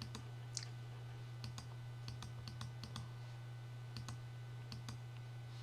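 Light, irregular clicking at a computer, about a dozen clicks spread unevenly, over a steady low hum.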